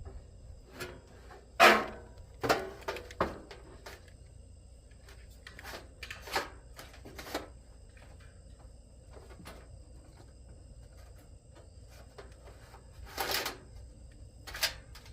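Irregular knocks and clunks of the sheet-metal fan shroud of an outdoor air-conditioning condenser unit, with the fan motor still attached, being worked up and out of the unit. The loudest knock comes about a second and a half in, a few more follow soon after, and there is a longer rattle near the end.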